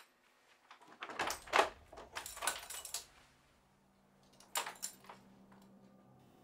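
A sharp click, then two bouts of clattering and rustling handling noise, the first longer and louder; a low steady hum comes in near the end.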